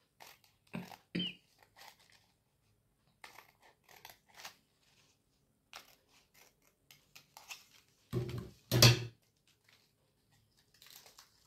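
Scissors snipping through folded paper, a series of short, irregular cuts with paper rustling between them, and a couple of louder thumps near the end.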